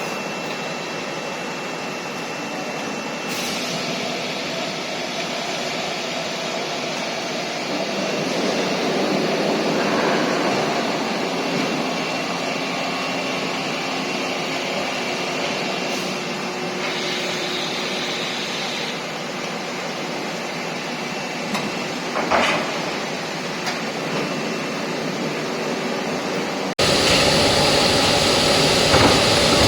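Steady mechanical running noise of a hydraulic press line for concrete slabs, with a single knock about three quarters of the way through. Near the end the noise jumps suddenly to a louder, harsher level.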